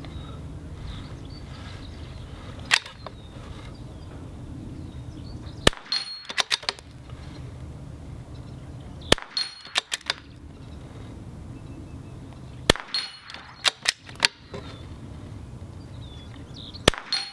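A .22 LR bolt-action rifle firing five shots about three to four seconds apart, most of them followed by a quick run of small metallic clicks as the bolt is cycled for the next round.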